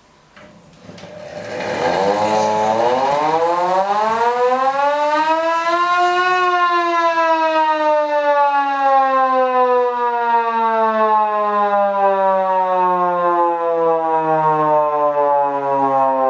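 Hand-cranked aluminium signal siren winding up: a rush of air and a wail that rises in pitch for about six seconds, then slowly sinks as the rotor spins down. It is run well below full power.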